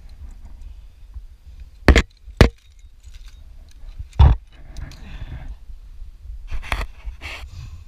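Climber's movement against a worn GoPro camera: three sharp knocks, two about two seconds in, half a second apart, and a third about four seconds in, then softer scuffing and sleeve fabric brushing over the camera.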